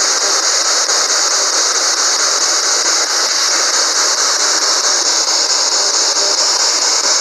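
Handheld P-SB11 spirit box radio sweeping through stations: a loud, steady hiss of radio static with no clear words coming through.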